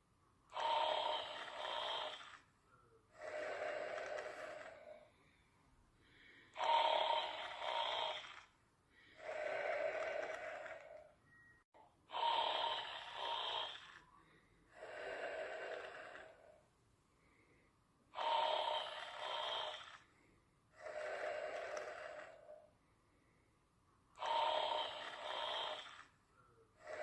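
Steady, rhythmic snoring, about one breath every six seconds. Each breath has a louder, higher-pitched part followed by a softer, lower part.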